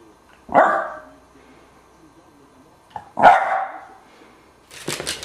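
West Highland white terrier barking twice, single sharp barks about two and a half seconds apart. Music starts near the end.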